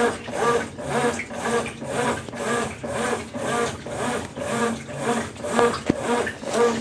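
Consul Facilite CWC10 10 kg top-loading washing machine agitating during the rinse, its motor swinging the load back and forth. It makes an even rhythm of about two strokes a second, each a whine that rises and falls in pitch.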